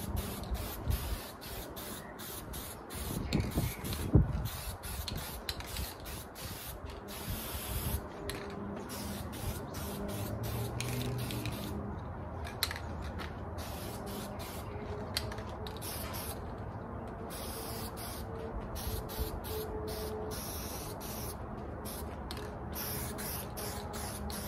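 Aerosol spray paint can hissing in many short bursts with brief breaks as paint is sprayed onto a metal grill, with one sharp knock about four seconds in.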